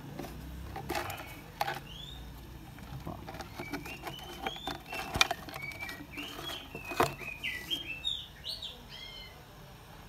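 Sharp clicks and knocks of a clear plastic tub being handled while a scorpion is scooped up, loudest twice in the middle. Over them, a run of short chirps from small birds.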